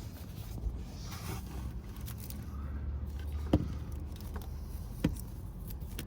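Low steady hum with a few sharp clicks and light knocks of hands handling parts in a car's engine bay, two louder clicks near the middle and towards the end.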